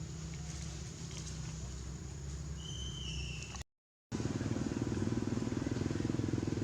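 An engine running steadily, with a short high squeal about two and a half seconds in. The sound cuts out completely for half a second just before the midpoint, then returns louder.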